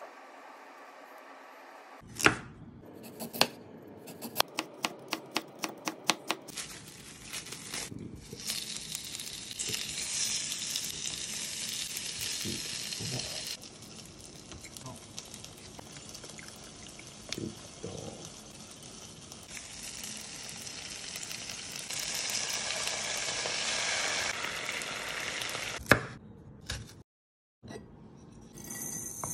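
Kitchen knife chopping on a wooden cutting board, a quick run of knocks about four a second. Then a long steady hiss of meat and vegetables sizzling as they fry in a pan, easing off for a while and coming back louder.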